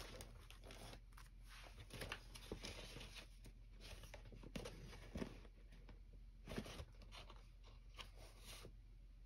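Faint rustling of paper being handled, with small scattered crinkles and taps.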